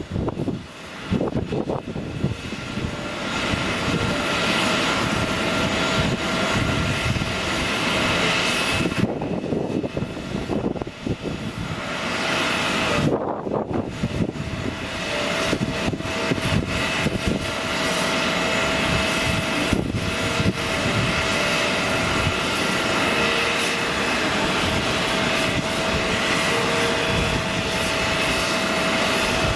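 Boeing 747-400 airliner's four jet engines running: a continuous rush with a steady high whine over it, dipping briefly twice.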